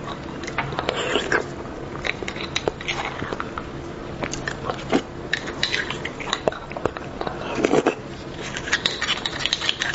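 Close-miked eating of beef bone marrow: a small metal spoon scraping and clicking inside the hollow bone, with irregular wet biting and chewing sounds.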